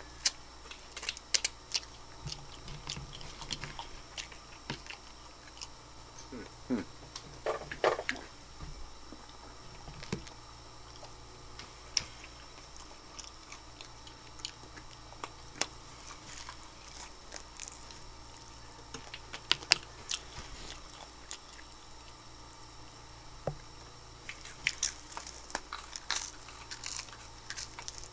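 Close-miked eating: a person biting into and chewing whole chicken wings in tandoori coconut sauce, with wet smacks and small crunches. The mouth sounds come in bunches: near the start, around eight seconds, around twenty seconds and near the end.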